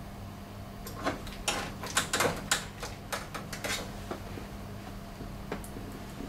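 A screwdriver and screws clicking and scraping against a photocopier's metal frame as the main board's screws are put back. There is a quick run of sharp clicks from about a second in to about four seconds, then a few single ones, over a steady low hum.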